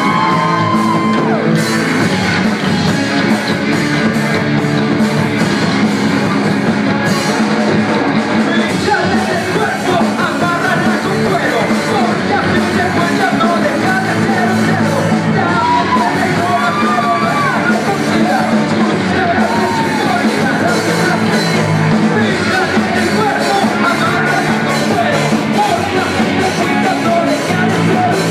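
Loud rock music played live in a large hall, with singing and yelling voices over the band.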